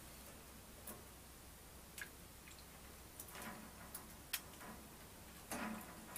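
Budgie bathing in a small feeder cup of water: scattered light clicks and ticks, with two longer splashy bursts about three and a half and five and a half seconds in.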